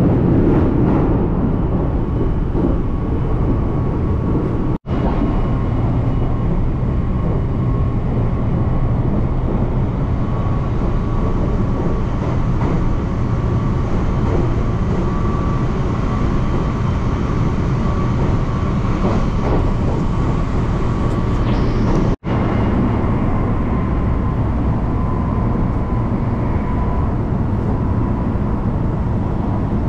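Steady running noise of a JR local train heard from inside the carriage: a low rumble of wheels on rails with a faint steady whine. The sound cuts out for a split second twice, about five seconds in and again past twenty seconds.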